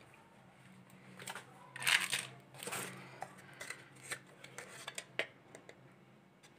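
Light clicks, scrapes and rustles of a baking powder tin being picked up and opened and powder scooped out with a plastic measuring spoon, with the loudest scraping rustles about two seconds in.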